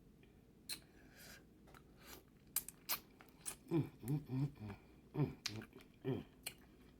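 Close-miked eating of seafood-boil blue crab: sharp wet clicks and smacks of chewing and picking the meat, followed about four seconds in by a few short hummed sounds of enjoyment.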